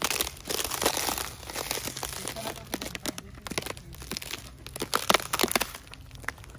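Footsteps crunching on thin ice and frozen dry oak leaves over a muddy trail: irregular cracking and crinkling with each step.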